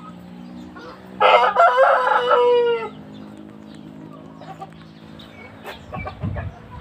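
A high-breed rooster crows once, starting about a second in and lasting under two seconds, its pitch falling at the end, with fainter chicken calls around it.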